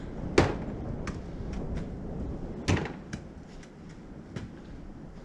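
A thrown ball knocking against a child's plastic basketball hoop and bouncing: two sharp knocks, about half a second in and near the middle, with lighter clicks and taps between and after.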